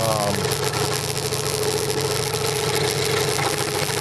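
Electric scroll saw running at a steady speed, its motor and reciprocating blade making an even mechanical hum.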